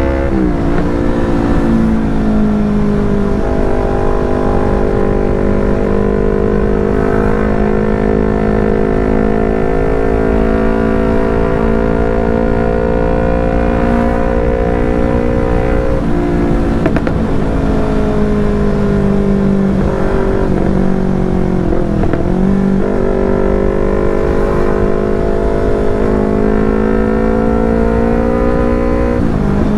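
Yamaha R25's parallel-twin engine running through a Proliner TR1R short aftermarket exhaust at fairly steady revs. The revs dip sharply and climb back four times: near the start, about halfway, about two-thirds in, and at the end.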